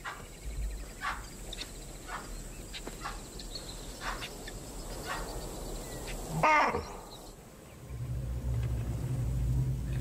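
Baboon alarm calls: a run of short sharp calls, then one loud bark about six and a half seconds in that falls in pitch, raised at lions stalking nearby. A low steady hum sets in near the end.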